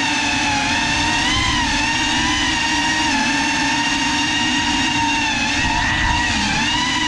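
Small quadcopter drone's electric motors and propellers whining steadily in flight, heard close from its onboard camera. The pitch wavers slightly up and down as the throttle changes.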